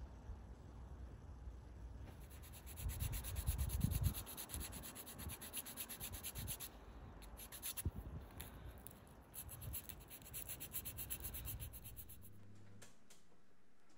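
Quick, rhythmic rubbing and scraping strokes with a few dull knocks, which stop abruptly about twelve seconds in.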